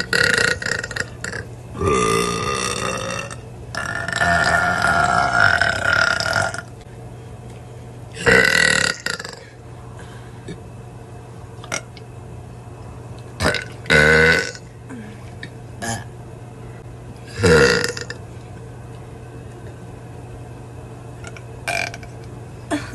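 Girls belching one after another: two long drawn-out belches in the first seven seconds, then shorter belches every few seconds.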